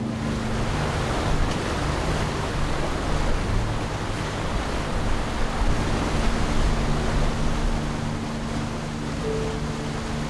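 A boat engine drones steadily under loud rushing water and wind. The rush swells in the middle and eases toward the end, while the engine hum stays constant beneath it.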